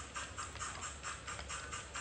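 Sound-equipped HO model of a NSWGR 38 class steam locomotive, its Loksound 5 decoder's speaker playing a steady rhythm of steam exhaust chuffs, about six a second, over a low steady hum.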